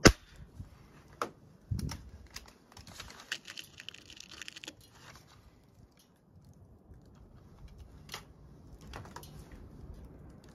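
A .177 break-barrel spring-piston air rifle fires once with a sharp crack right at the start, the loudest sound here. It is followed by scattered small clicks, a dull knock and a stretch of fine clicking and rattling as the rifle is handled.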